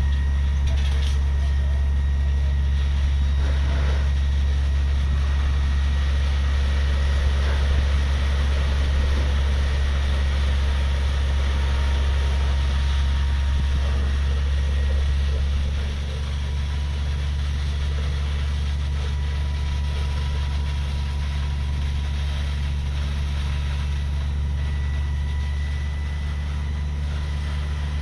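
Fire truck engine running steadily with a low drone and a faint steady whine, working to supply water to the aerial ladder's stream. It drops a little in level partway through.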